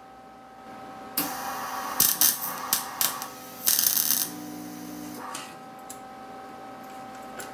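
Wire-feed welder arc crackling in several short bursts while tack-welding a steel accelerator pedal bracket, starting about a second in and stopping about four seconds in, over a faint steady hum.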